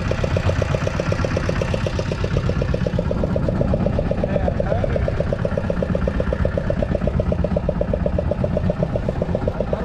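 Fishing boat's engine idling steadily, with a fast, even pulse.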